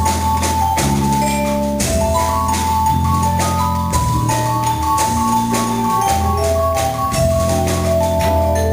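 Vibraphone played with mallets in quick runs of struck, ringing notes, over sustained low notes from the band.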